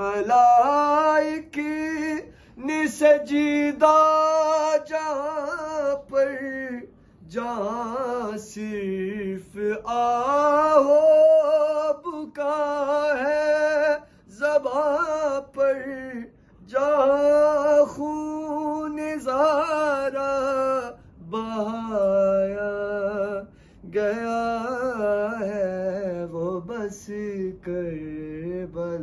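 A man's solo voice reciting a religious devotional text in a melodic chant, unaccompanied, in long sung phrases broken by short pauses for breath.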